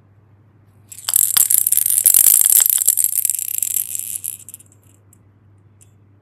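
A dense crackling, rustling noise, many small clicks over a high hiss, starts about a second in and fades out after about four seconds.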